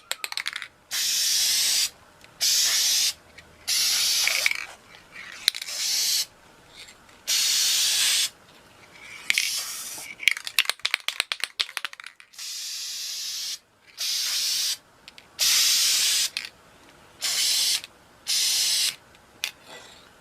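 Spray paint being sprayed onto a radio cabinet in about a dozen short bursts of hiss, each about a second long, with clicks and rattles between them.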